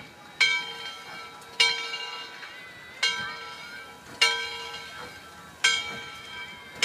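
Steam locomotive's bell ringing as the engine pulls out, one clang about every 1.3 seconds, each ringing out and fading before the next.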